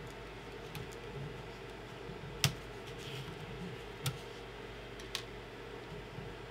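Hands working a 3D printer's braided cable harness: three sharp clicks, the first and loudest about two and a half seconds in, the others a second or two apart, over a steady low hum.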